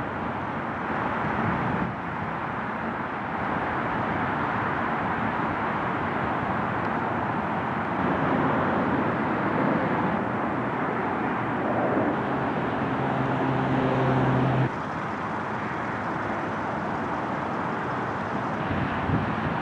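Outdoor ambience: a steady rush of distant traffic. A low, steady hum joins about eight seconds in and cuts off suddenly about fifteen seconds in.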